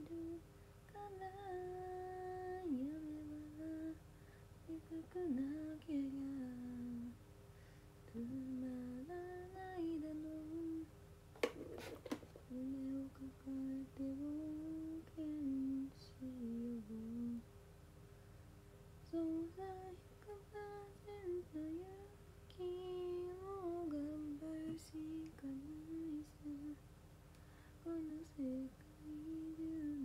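A woman humming a wandering melody to herself, with short pauses. A brief sharp clatter comes about twelve seconds in.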